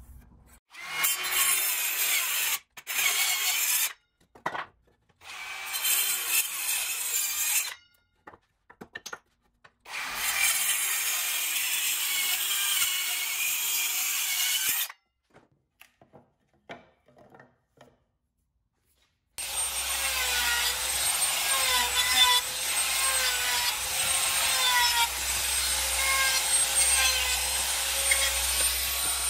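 Compact circular saw cutting through wood in several short bursts with quiet gaps between them. After a short pause, a handheld trim router starts and runs steadily while routing the edge of a small wooden piece; its whine wavers as the bit cuts.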